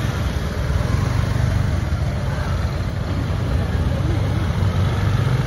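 An engine running steadily, a low rumble under a noisy hiss.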